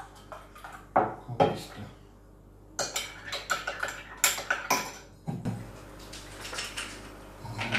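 Metal teaspoon clinking against a ceramic mug, with knocks as the mug and a drinks can are set down on a wooden table. Two sharp knocks about a second in, then a quick run of clinks for about two seconds, and a few more later.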